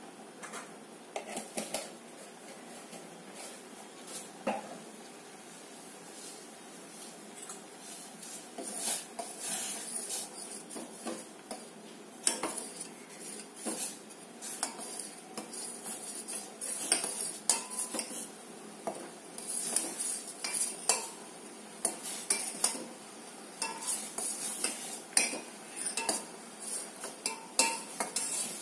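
A spoon clinking and scraping against a pot and tin as palm jaggery is scooped in and stirred into a pot of vasaka leaf decoction; irregular taps that come more often from about eight seconds in.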